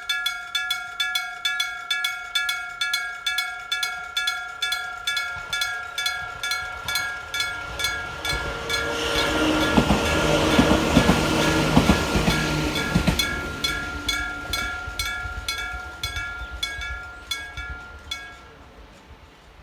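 Electric bell of a Japanese railway level crossing striking steadily, about two and a half strokes a second, with several ringing tones. A train passes over the crossing in the middle, with rushing noise and wheels clacking over rail joints, and the bell stops shortly before the end.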